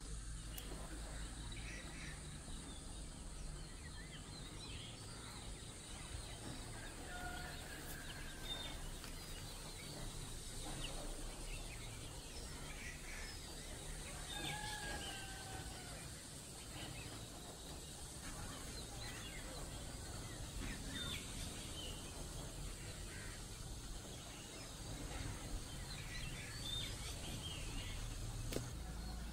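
Outdoor ambience of scattered bird calls: short chirps and a few whistles that glide in pitch, spread irregularly throughout. Underneath are a steady low rumble and a faint steady high tone.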